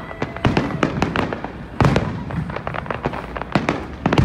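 Fireworks going off in a rapid, irregular barrage of bangs, with the loudest bang about two seconds in.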